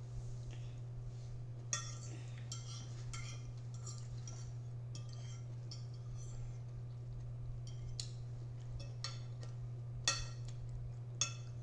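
A fork clinking and scraping against a dish of salad in short, scattered taps, over a steady low hum.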